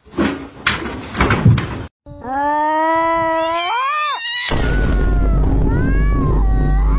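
A clatter of knocks and thumps for about two seconds, then a tabby cat's long drawn-out meow that rises and bends at the end, followed by shorter meows over loud low noise.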